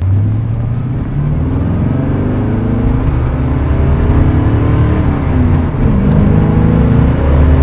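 1979 Corvette's L82 350 V8 with Hooker headers accelerating hard from a standstill. The revs climb for about five seconds, drop briefly near six seconds as it shifts up through the four-speed manual, then climb again. Heard from inside the cabin.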